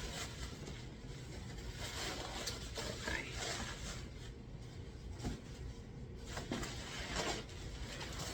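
Rustling and light knocking of packaging being handled while items are taken out of a box, over a steady low room hum.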